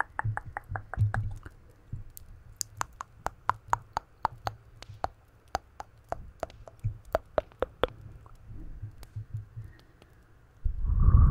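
Wet mouth clicks and lip smacks made right against a cupped microphone, coming in quick irregular runs. Near the end a sudden, much louder low rumble begins.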